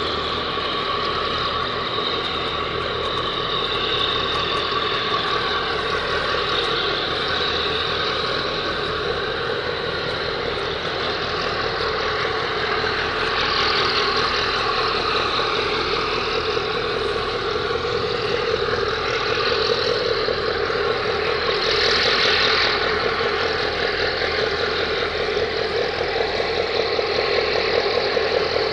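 A boat's engine running with a steady drone, mixed with rushing water, getting a little louder near the end.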